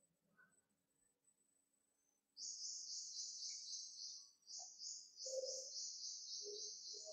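Near silence for about two seconds, then a cricket starts chirping: an even, high-pitched train of chirps, about five a second.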